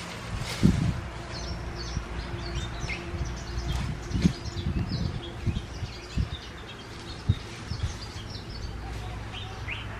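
Birds chirping: many short, high twittering notes scattered throughout, over low thumps and rumble from wind or handling on the microphone.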